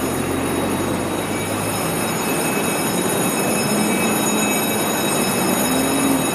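Scania fire truck's diesel engine running close by as the hydraulic platform pulls slowly away, a loud, steady noise with a faint low tone that rises and falls near the end.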